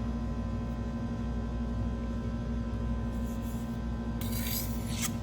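Steady electrical hum, and about four seconds in a single scraping stroke of a chef's knife blade across the wet 1000-grit side of a whetstone, with a fainter stroke a second before it.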